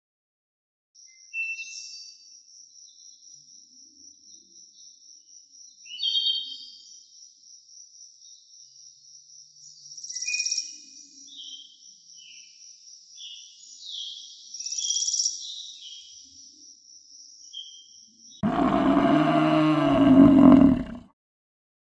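A high, evenly pulsing trill with scattered short chirps, then, about eighteen seconds in, a large animal's loud roar lasting about two and a half seconds.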